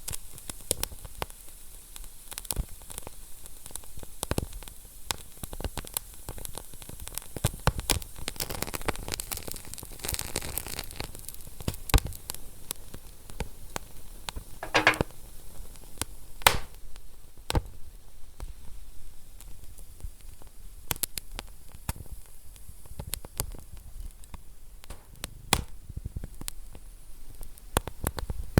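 Wood fire crackling in a fireplace: a steady hiss with many irregular sharp pops and snaps. The hiss and crackle thicken for a few seconds about a third of the way in.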